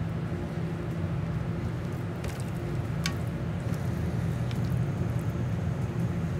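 A steady low machine hum, the running drone of commercial kitchen equipment. A few faint clicks come about two and three seconds in, from raw chicken pieces being handled and pushed onto bamboo skewers.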